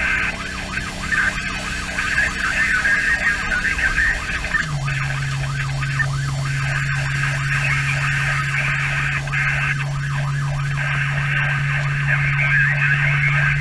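Pierce fire engine's siren yelping rapidly, heard from inside the cab over the steady drone of the truck's engine.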